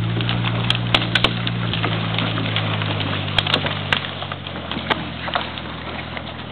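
Opel Campo 4x4 pickup's engine running steadily under load as it drags logs along a forest track, with scattered sharp cracks and snaps of twigs and branches breaking. The engine drops and fades after about four seconds as the truck moves off.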